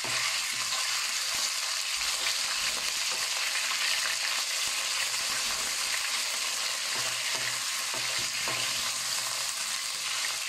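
Raw shredded meat sizzling steadily in hot oil in a nonstick wok as it starts to fry, while a wooden spatula stirs it around.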